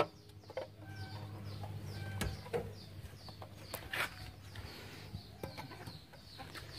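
Faint outdoor background of small birds chirping over and over in short, high, falling notes. A few sharp clicks or knocks cut through, about two seconds and four seconds in.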